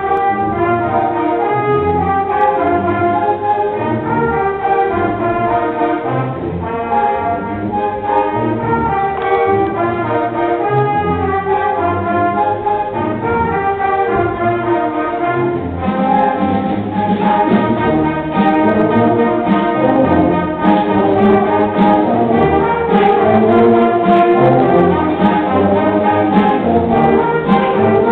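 A school concert band playing: trumpets, trombones, tubas and clarinets sounding chords together. About halfway through it grows fuller, with a steady beat of sharp strokes under the winds.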